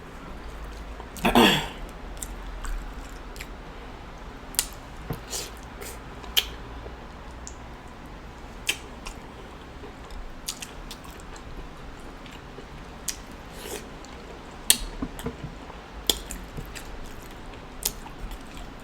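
Close-miked eating sounds of a person chewing saucy seafood boil: wet chewing with scattered sharp lip smacks and clicks. A short hummed vocal sound comes about a second in.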